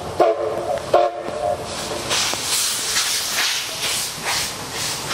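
Steam whistle of the second C11 locomotive, C11-325, giving two short blasts: the 'power' (rikkō) signal that answers the lead engine before the train climbs and steam goes to the cylinders. Its open cylinder drain cocks then hiss in rhythmic bursts, about two to three a second, with the exhaust beats as it starts working.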